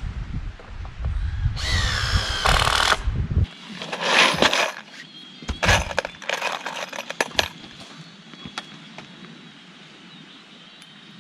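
Cordless drill running in short bursts, then screws clicking and rattling as a hand picks through a plastic tub of them. A low rumble sits under the first few seconds.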